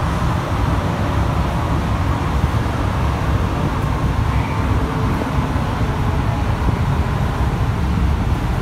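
Cabin noise of a rubber-tyred Alstom NS-93 metro train running at speed on its guideway: a steady low rumble with a faint steady whine.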